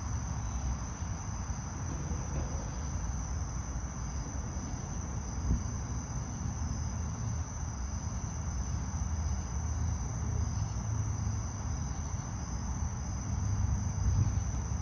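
Steady high-pitched insect chorus ringing without a break, over a low rumble.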